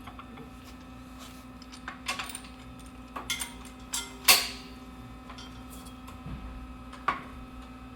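Scattered metal clinks and knocks from tools and vise parts being handled. The loudest is a ringing clank about four seconds in, and a steady hum runs underneath.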